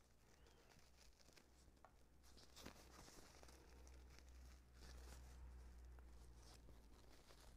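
Near silence: faint rustling and crinkling of wired plaid ribbon being pinched and twisted into a bow, with a few soft ticks, over a low steady hum.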